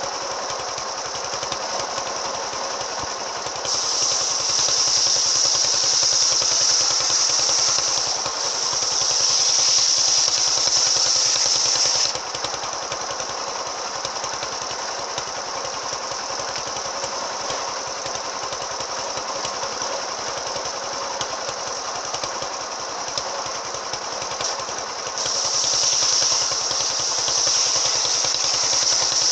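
Engine-driven circular saw (serkel) with an AKM blade running steadily. Twice it gets louder with a high-pitched cutting sound as the blade goes into wood: about four seconds in for some eight seconds, and again from near the end.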